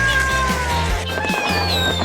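A drawn-out cat meow that falls slowly in pitch and fades about halfway through, over background music with a steady beat.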